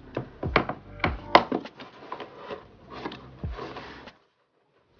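An album's cardboard case and paper inserts being handled and rustled, with a string of sharp taps and clicks, stopping about four seconds in.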